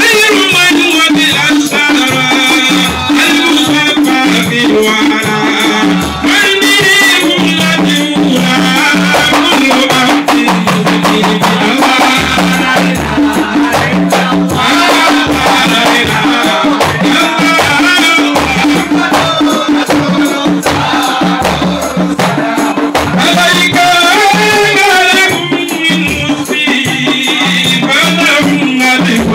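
A man singing into a microphone, with men singing along, over handheld frame drums and a shaker rattle playing a steady rhythm. The music is amplified through loudspeakers and is loud throughout.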